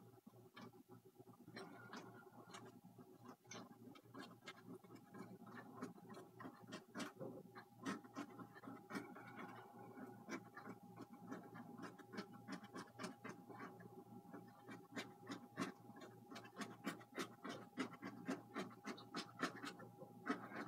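Quick, faint, irregular scratchy strokes of a bristle brush working oil paint across a canvas, with a faint steady tone underneath.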